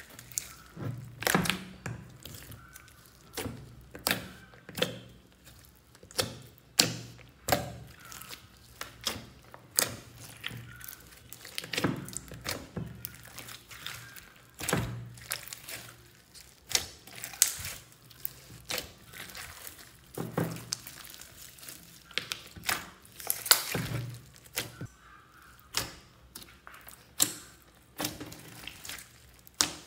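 Slime mixed with small foam beads being kneaded and squeezed by hands: irregular wet squelches and sharp pops of trapped air, many with a low thud, every second or so.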